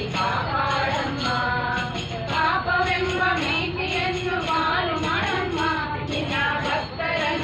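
Group of women singing a Kannada devotional song (devaranama) together in sustained, melodic phrases. A steady metallic jingling keeps the beat underneath.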